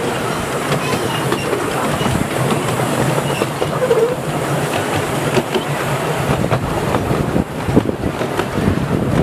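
Miniature steam railway train running on 7¼-inch-gauge track, heard from a passenger carriage: a steady rumble of the carriages with many short clicks and rattles from the wheels on the rails.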